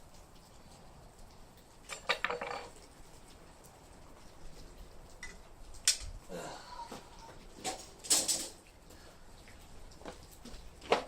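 Scattered metal clinks and scrapes, in a few short clusters, from handling the crucible and the melted padlock remains.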